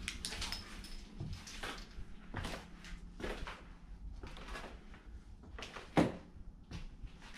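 Footsteps climbing worn wooden stairs, a steady knock on each tread about every second, with one louder thump about six seconds in.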